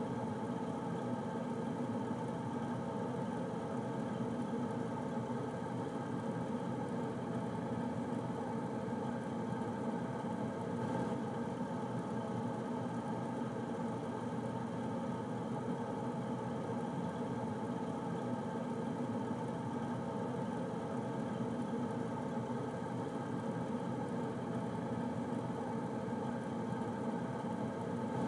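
Air conditioner running steadily: an even whirring hum with no change in pitch or level.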